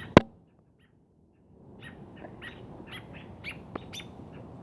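A sharp click just after the start, then a gap, then a small duck giving short, high chirping peeps over and over.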